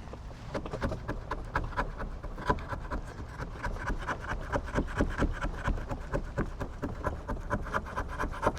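Hand scraper prying and scraping an old foam deck pad off a paddle board, in quick, repeated scraping strokes that start about half a second in.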